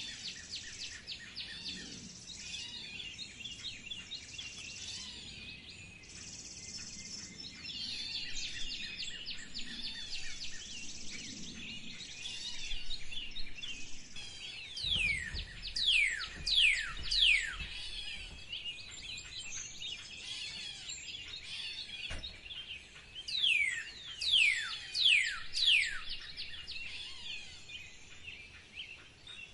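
A chorus of wild birds chirping and singing. Twice, about halfway in and again near the end, comes a run of about four loud, clear whistles, each sliding steeply down in pitch.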